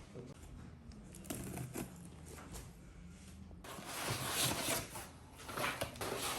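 Handling noises: a few faint clicks over a low hum, then rustling and light scraping from about three and a half seconds in.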